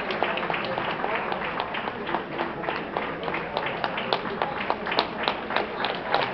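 Audience clapping in irregular, scattered claps over indistinct crowd chatter, the claps louder and denser from about three and a half seconds in.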